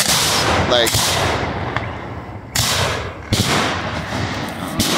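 Professional fireworks shells firing one after another from ground racks of mortar tubes: a series of about five sudden loud bangs, each fading into a rush of noise.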